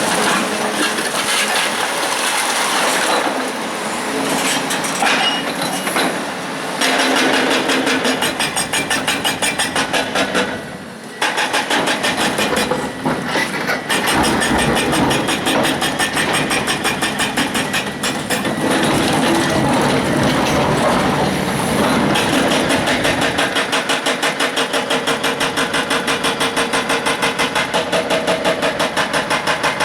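Hydraulic breaker on a Volvo 360 excavator hammering big stone with rapid, steady blows over the excavator's running engine, with a short pause about eleven seconds in.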